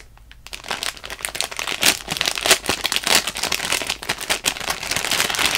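Clear plastic packaging bag crinkling and crackling as a soft foam bagel squishy is worked out of it by hand, a dense run of crackles starting about half a second in.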